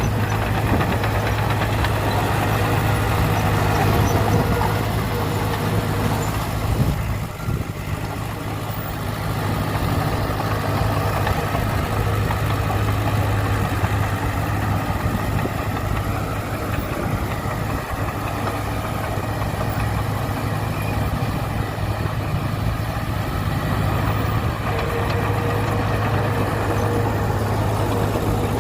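Diesel engine of heavy earthmoving machinery running steadily, a low even drone with a brief dip in loudness about seven seconds in.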